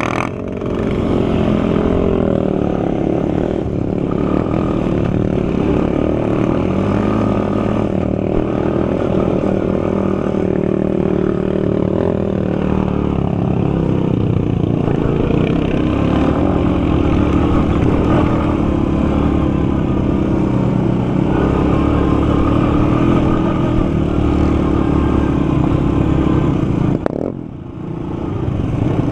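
Sport quad (ATV) engine running under throttle while riding across sand, its pitch rising and falling with the throttle. Near the end it drops off briefly, then picks back up.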